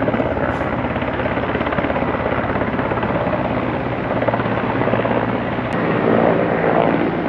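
Helicopter flying by, a steady rapid beating of rotor blades that grows a little louder near the end.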